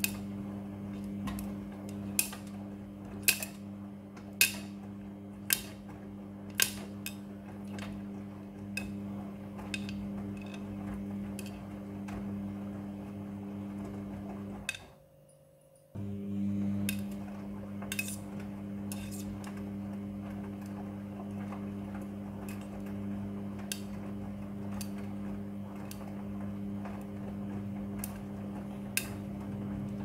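Midea front-loading washing machine tumbling a load of laundry: a steady motor hum with sharp clinks, about once a second in the first half and sparser later, as hard bits in the load strike the drum. The sound drops out for about a second midway.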